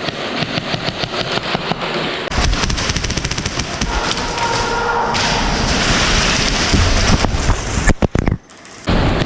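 Airsoft guns firing in fast strings of shots, a rapid train of sharp cracks, giving way about two seconds in to a louder, denser rush of noise that drops away briefly near the end.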